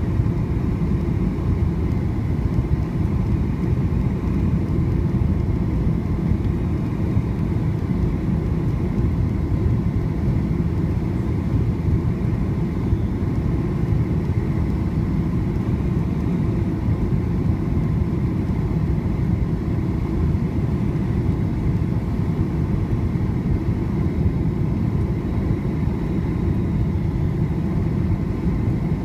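Steady low rumble inside the cabin of a Boeing 757-200 on final approach, from the engines and the airflow over the extended flaps, even throughout with no touchdown.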